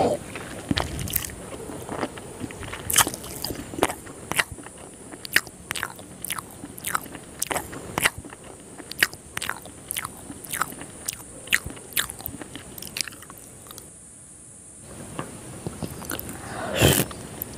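Close-miked chewing of a soft, syrup-soaked rasgulla: wet mouth clicks and smacks come about once or twice a second. They pause briefly near the end, then a louder wet bite follows.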